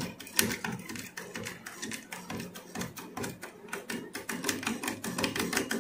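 Hand-operated feed pump on a model steam boat's boiler being worked by its lever, giving rapid, irregular metallic clicks as it pumps water into the boiler.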